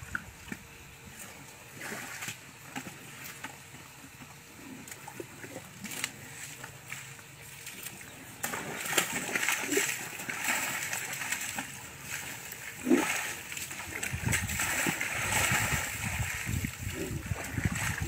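Baby elephant splashing and sloshing in a small tub of water: light splashing at first, heavier and busier from about halfway through, with one loud splash a little past two-thirds in.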